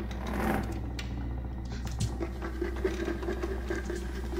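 Horror-film sound effects over a steady low drone: a short rushing noise about half a second in, a click, then a rough, crackling scratch-like sound that runs on to the end.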